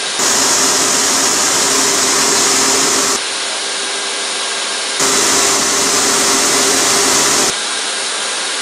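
Leister hot-air blower running, a steady rush of hot air. It runs louder for about the first three seconds and again from about five seconds to seven and a half, and drops to a quieter rush in between and near the end.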